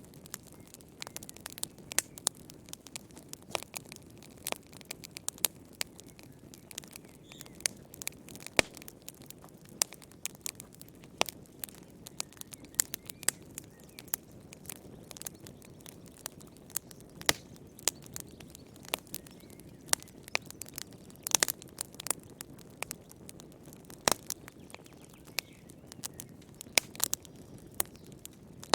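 Wood fire crackling in a fireplace: irregular sharp pops and snaps, several a second and some much louder than others, over a low steady rush of burning.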